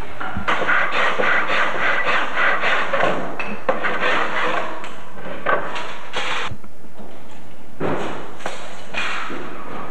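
Building work with hand tools on a construction site. A quick regular run of knocks, about four a second, lasts about three seconds, followed by scattered irregular knocks.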